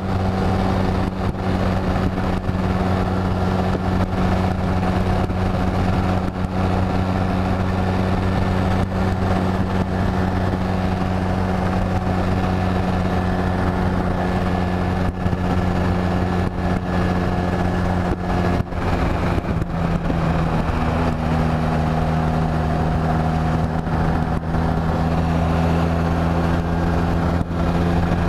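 Honda Rebel 250's air-cooled parallel-twin engine running steadily while riding at road speed. About two-thirds of the way through, its note steps down a little.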